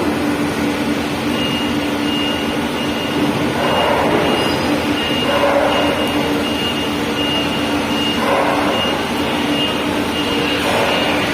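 Vehicle engine running with a steady hum. From about a second in, a high electronic warning beep repeats at an even pace, roughly two beeps a second, like a reversing alarm.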